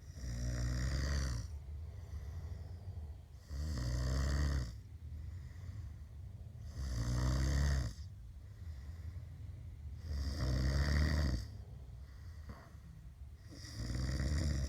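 A man snoring: five long snores, each lasting just over a second, one about every three and a half seconds.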